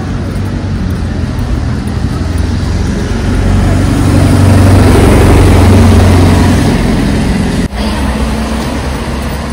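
Street traffic: a motor vehicle passes close on a wet road, its engine hum and tyre hiss swelling to a peak about halfway through and then fading.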